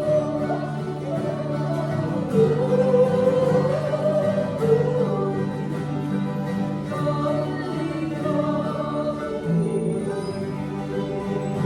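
A small group of voices singing together in held notes, with acoustic instrument accompaniment.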